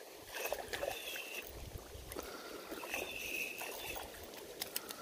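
Shallow creek water splashing and sloshing close by, with scattered small clicks and two brief high chirps, about a second in and about three seconds in.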